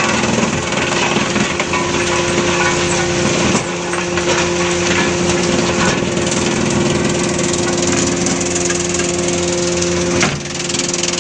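Industrial wood-crushing machine running under load, a steady mechanical hum under the dense rattle and grinding of wood being broken up. The sound changes abruptly about three and a half seconds in and again near the end.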